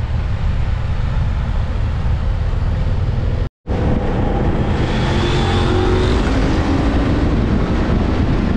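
Motorcycle riding at road speed: a steady engine drone under heavy wind noise on the camera microphone. The sound drops out for an instant a few seconds in, then resumes, with a faint rising engine note soon after.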